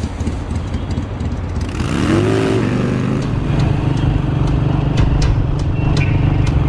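Motorcycle engine revving with a rising pitch about two seconds in, then running steadily as the bike rides off.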